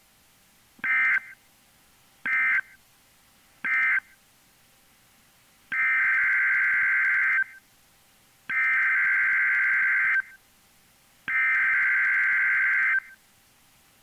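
NOAA Weather Radio SAME digital data bursts: three short end-of-message bursts about a second and a half apart close the lakeshore flood warning, then three longer header bursts, each nearly two seconds, open the next alert, a high wind warning.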